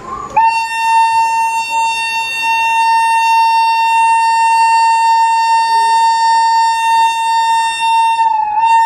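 WAP-7 electric locomotive's air horn sounding its departure signal: one long steady blast on a single high note, starting a moment in and wavering slightly in pitch near the end.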